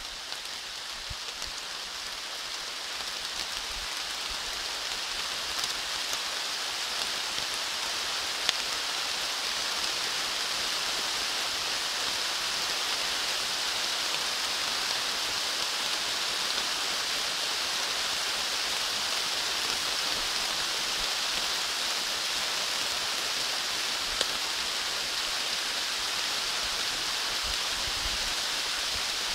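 Steady rain falling on the foliage of a leafy woodland: an even hiss that grows a little louder over the first several seconds and then holds steady, with a couple of sharper drops.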